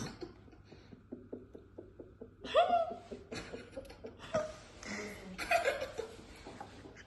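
People laughing. It starts as a quick run of short breathy pulses and breaks into louder laughs about two and a half seconds in.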